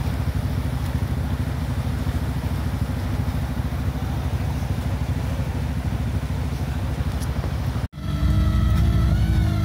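Steady rush of a fast river mixed with a side-by-side's engine running. About eight seconds in the sound breaks off sharply, and a louder side-by-side engine takes over, running hard with its pitch rising slightly.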